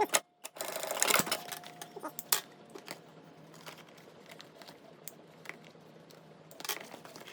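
Sewing machine stitching in a short run about half a second in, followed by scattered light clicks and taps, with another brief burst near the end.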